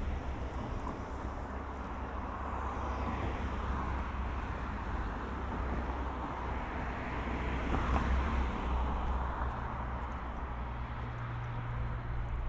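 Road traffic: a vehicle passes, its tyre and engine noise swelling to a peak about eight seconds in and then fading, over a steady low rumble.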